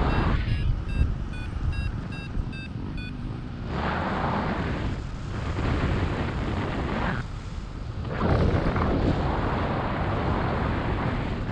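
Wind rushing over the microphone in paraglider flight, surging and easing every second or two. For the first three seconds a variometer beeps rapidly in short pips, the climb tone that signals the glider is rising in lift.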